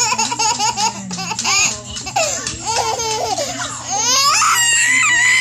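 Toddler laughing hard in quick repeated bursts of giggles, which turn about four seconds in into a long, high-pitched squeal of laughter.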